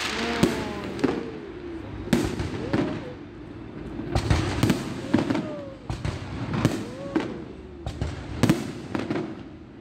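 Fireworks display: aerial shells bursting one after another, about a dozen sharp bangs in quick, uneven succession.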